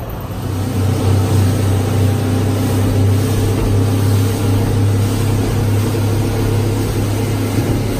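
Outboard motor running steadily at speed, a constant low drone that comes in about half a second in, over the rush of wind and water from the boat's wake.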